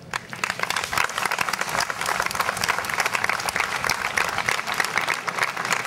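A large crowd applauding: dense, even clapping that starts suddenly and keeps going steadily.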